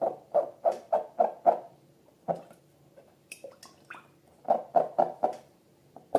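Slime being squeezed and pressed by hand, with squelching pops about three a second in two runs and a few high squeaks in between.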